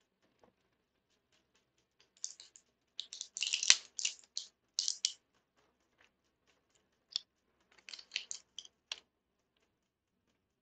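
Typing on a computer keyboard: quick clicking keystrokes in a longer run starting about two seconds in, then a shorter run near the end.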